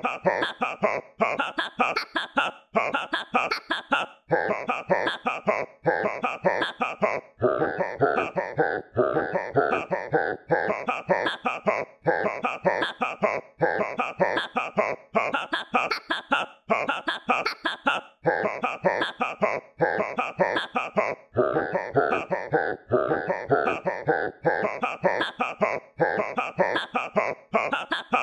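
Background music with a steady, choppy beat of short notes.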